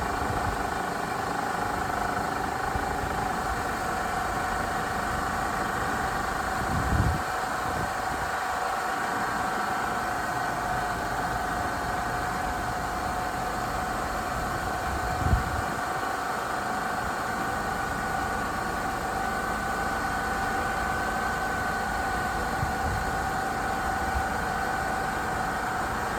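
1997 Pontiac Grand Prix engine idling steadily with a steady high whine over it, run after new coolant hoses were fitted to purge air from the cooling system. Two brief low thumps, about 7 and 15 seconds in.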